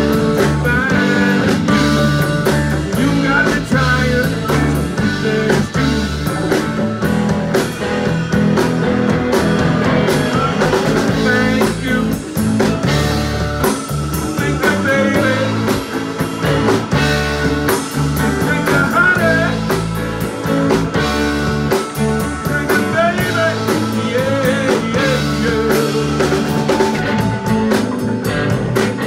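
Live rock band playing an instrumental stretch with electric guitars, bass guitar, drum kit and keyboard over a steady beat. A lead line of bending notes runs over the top.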